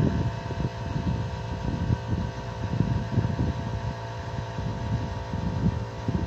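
An engine running, with a steady hum of several fixed tones over an uneven low throbbing.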